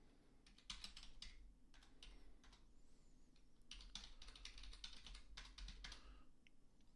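Faint typing on a computer keyboard: short runs of rapid key clicks, the longest from about four to six seconds in.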